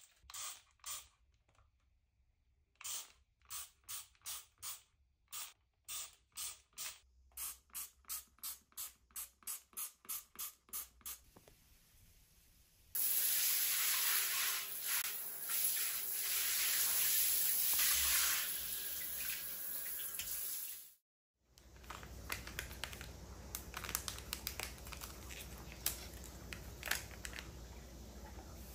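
A trigger spray bottle of bathroom cleaner spritzing again and again, about two quick sprays a second. About 13 s in, a shower head starts spraying water hard onto tiles and a glass shower screen, and it stops suddenly about 8 s later. Faint clinks of glass and a spoon follow.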